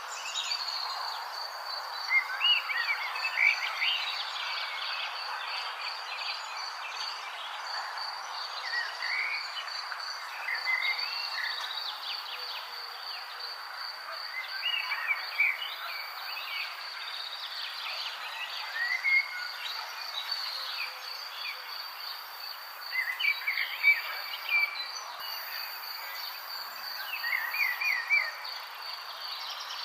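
Outdoor nature ambience: an insect trills steadily on one high note over a low background hiss, while birds give short chirping calls on and off.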